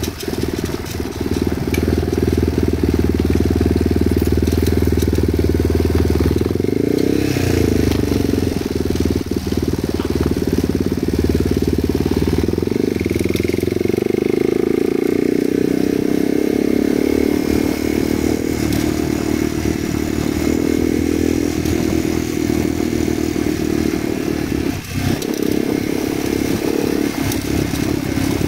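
Motorcycle engine running steadily, with its pitch shifting about 7 seconds in and again about 13 seconds in.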